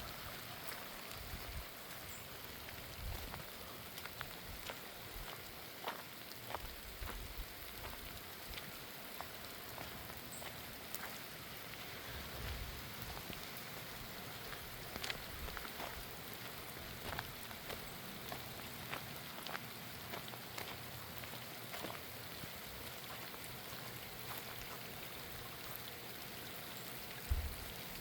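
Steady rain falling, an even hiss dotted with scattered sharp drop ticks, with a low thump near the end.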